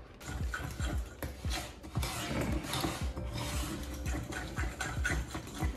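A utensil stirring oat flakes into a batter of mashed banana and egg in a mixing bowl, with irregular scraping and light knocks against the bowl.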